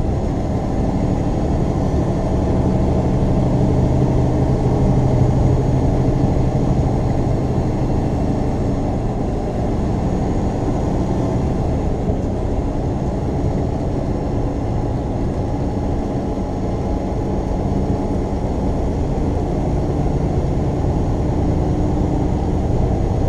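Semi-truck's diesel engine and tyre noise droning steadily in the cab at highway cruising speed, with a low hum that swells slightly a few seconds in.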